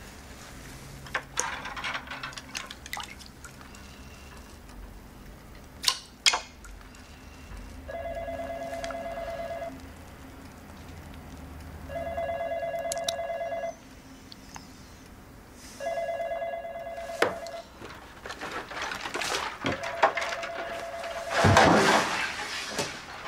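A telephone ringing with an electronic buzzing ring, about two seconds on and two seconds off, starting about eight seconds in and sounding four times. Scattered knocks come before and between the rings, with a louder burst of noise near the end.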